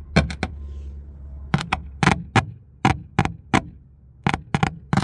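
A small car speaker in the cab of a 1995 Honda Acty kei truck popping each time a 9-volt battery is tapped across its wires: about a dozen sharp pops in small irregular clusters. The pops show that the right pair of speaker wires has been found.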